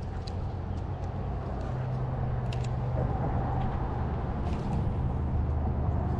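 Steady low rumble of road traffic on the bridge overhead, with a few faint clicks.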